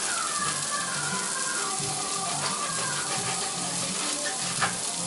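Ground turkey burger patties frying in a pan, a steady sizzle.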